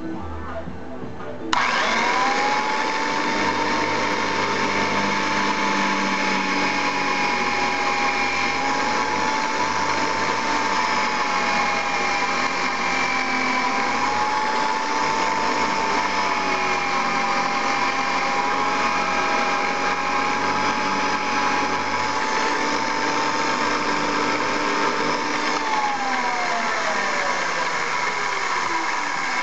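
Electric motor of a 1966 Powr-Kraft radial arm saw driving a bit on its 3450 RPM drill spindle, boring holes in wood. The motor comes up to speed with a rising whine about a second and a half in and runs steadily, its pitch wavering slightly while the bit cuts. Near the end it is switched off and winds down with a steadily falling whine.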